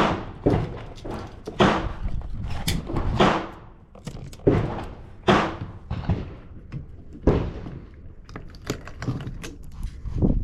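Gunshots from nearby shooting lanes at an outdoor range, fired irregularly about once a second, each sharp crack trailing off in a short echo.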